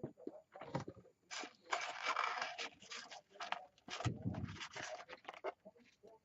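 Crinkling and scraping of fast-food paper packaging handled close to the microphone, in a run of bursts, with a low thump about four seconds in.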